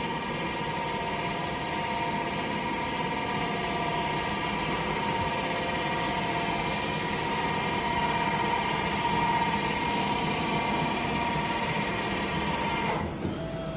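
Mori Seiki SL-150S CNC lathe spindle running at speed with no cutting: a steady whine of several even tones over a machine hum, easing off just before the end.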